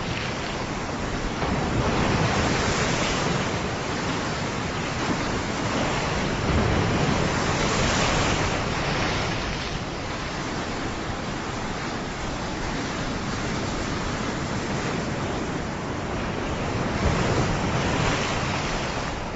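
Ocean waves breaking and washing on a beach, a steady surf noise that swells with each wave every few seconds, with some wind.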